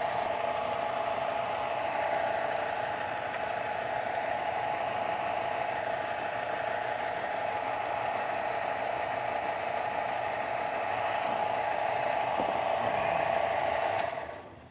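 Bench belt sander running with no work against the belt, a steady mechanical hum, which stops about a second before the end.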